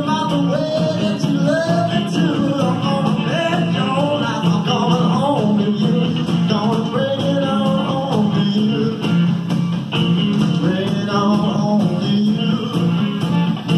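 A rock and roll band with a lead singer and bass, played from a cassette tape through a home stereo's Bose speakers. The singing and the bass line run on without a break.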